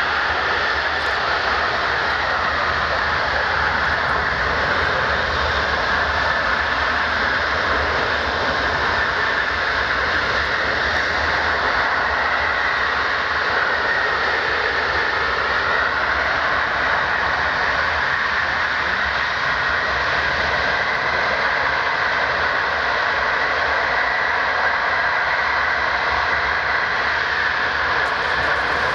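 The four Pratt & Whitney F117 turbofans of a Boeing C-17A Globemaster III running as the aircraft moves on the ground. The engine noise is loud and steady, with a high whine over it.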